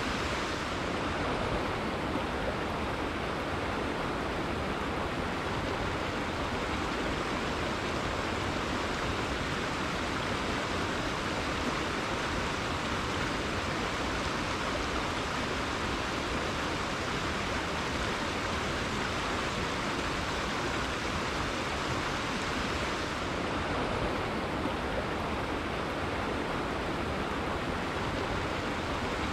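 Rainforest river water flowing steadily, an even rushing sound with no breaks.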